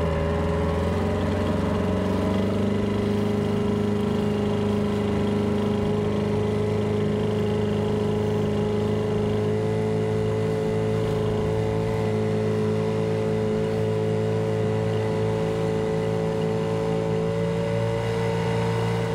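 Small outboard motor on an inflatable tender dinghy running under way, rising slightly in pitch in the first two seconds, then holding a steady note.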